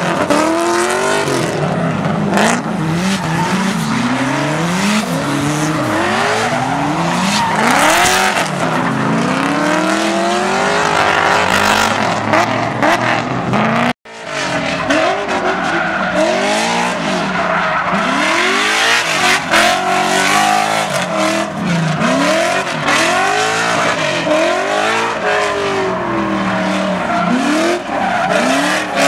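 Drift cars sliding with engines revving up and down over and over, over the squeal and hiss of spinning tyres. The sound cuts out for an instant about halfway through, then picks up again.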